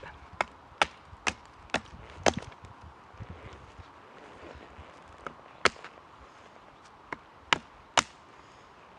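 Knife blade chopping into a wooden stick while shaping tarp pegs. Sharp chops come about two a second for the first couple of seconds, then a few more strokes spaced apart.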